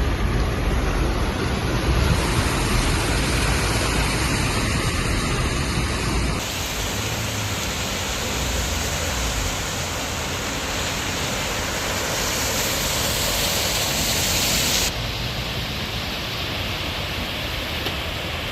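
Rushing water from a heavy downpour and street flooding, heard as a steady wash of noise. Its character changes abruptly about six seconds in and again near fifteen seconds.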